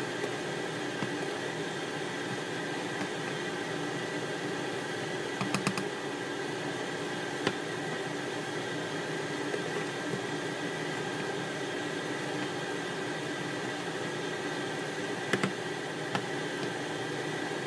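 Steady hiss and faint hum of cooking on a glass-top hob. Chicken wings in sticky sauce are tossed in a nonstick pan, with a few light clacks of the spatula against the pan: a quick run of them about a third of the way in and a pair near the end.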